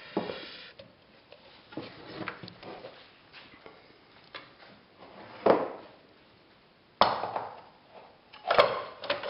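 Knocks and clatter of an American push reel mower being handled on a workbench as a wheel is taken off its hub, with three louder knocks in the second half.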